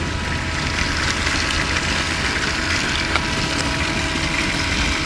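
Battery-powered toy trains running around plastic track: a steady whir of small electric motors with a few light clicks.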